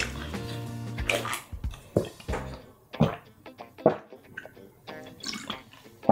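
Gulps of a drink swallowed from a plastic bottle: several short sharp swallows about a second apart, with liquid sloshing. Background music plays underneath.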